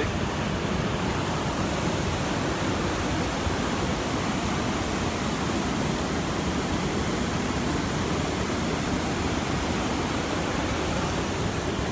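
Whitewater crashing over a rocky falls and rapids: a steady, unbroken rush of water.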